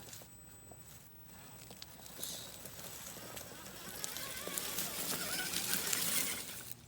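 RC rock crawler driving over rock, its small electric motor whining faintly under a rising crunching hiss of tyres and loose grit. The noise builds from about two seconds in and cuts off just before the end.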